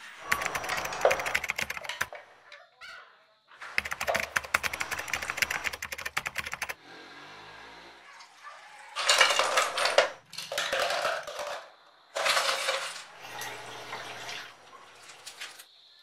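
Glassware and utensils clinking and rattling in about six short, separate bursts, the small sounds of iced drinks being made in a kitchen.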